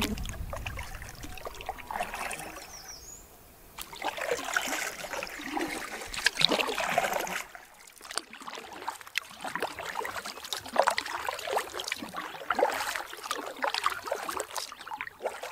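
Water splashing and trickling against a canoe, in uneven spurts of small splashes and drips with a couple of short lulls.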